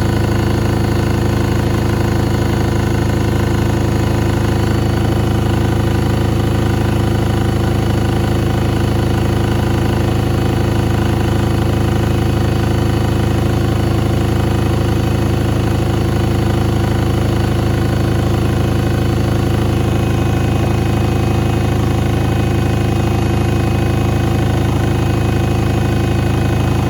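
Washing machine running, its motor giving a loud, steady, unchanging hum.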